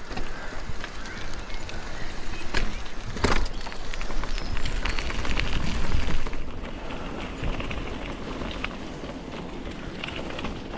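Riding an Eskute Voyager e-bike: wind buffeting the microphone and tyres rolling over a rough path make an even rushing noise with scattered small clicks, which eases a little about six seconds in.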